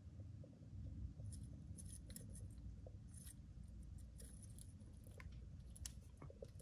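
Faint scattered clicks and ticks from metal feeding tongs, over a low steady rumble.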